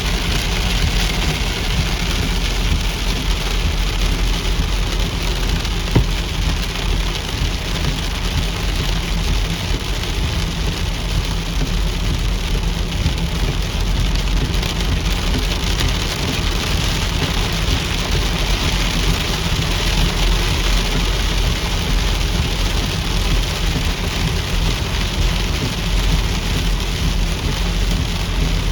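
Heavy rain falling steadily, an even hiss of rain on surfaces over a steady low rumble, with one brief tick about six seconds in.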